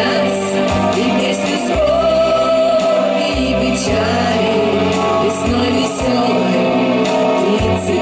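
Female vocal group singing together into microphones over an amplified instrumental backing with a steady bass line.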